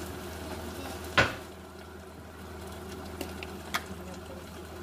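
A single sharp clink of metal cookware about a second in, then two faint ticks, over a steady low hum.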